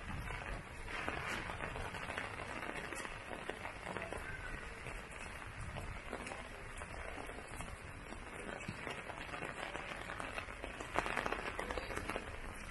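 Heavy rain falling on surfaces: a steady, dense hiss of raindrops with many small ticks, a little louder about 11 seconds in.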